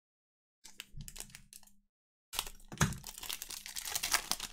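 Foil wrapper of a trading-card pack crinkling as hands tear it open. It comes as a short bout of crackling about a second in, then a louder, longer bout from a little past halfway on.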